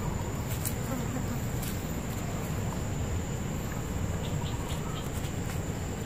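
Insects trilling steadily at one high pitch over a low rumble, with a few faint rustles.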